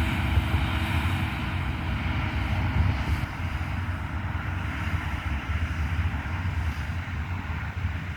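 JCB Fastrac tractor's engine working hard as it pulls a trailer loaded with about 20 tons of wheat: a steady low rumble with a hiss, no change in pitch.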